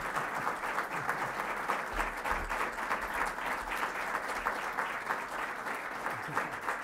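An audience applauding: many hands clapping steadily in a crowded auditorium.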